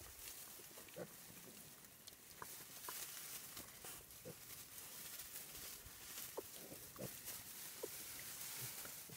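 Few-days-old piglets giving soft, short grunts and squeaks now and then as they root about in straw bedding, faint over a steady hiss.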